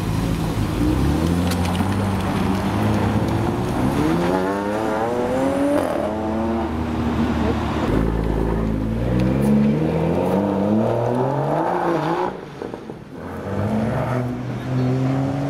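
BMW cars pulling away hard one after another, first an Alpina 3 Series Touring and then a BMW M2 with its turbocharged straight-six, the engine note climbing in repeated rising sweeps as they accelerate through the gears.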